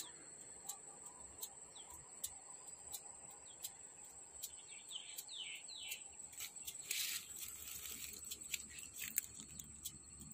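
Faint countryside ambience: a steady high insect drone with short clicks a couple of times a second, a few quick falling bird chirps about five seconds in, and a brief burst of noise about seven seconds in.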